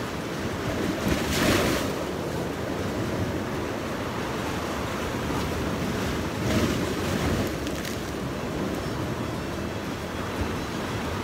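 Sea waves washing against the rocks, with two louder surges about a second and a half in and again about six and a half seconds in, and wind buffeting the microphone.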